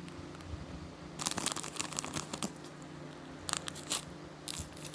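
Crinkling and crackling of plastic packaging being handled: a dense run of crackles about a second in, then shorter bursts near the end.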